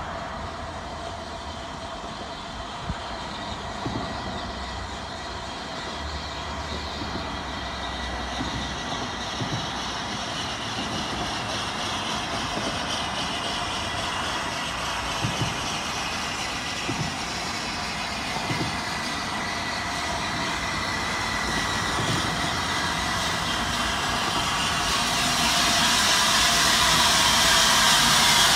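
Steam locomotive hauling a passenger train approaching along the track, its sound growing steadily louder as it draws near, with a rushing hiss building up near the end.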